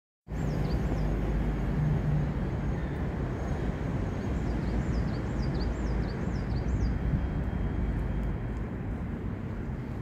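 Outdoor ambience with a steady low rumble, over which a small bird sings quick, high, swooping whistled notes: a pair near the start, then a run of about six around four to seven seconds in.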